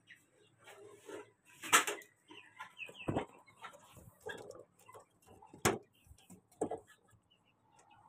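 Irregular knocks and scraping from a handheld phone being moved about, with a few short high chirps from small animals in between.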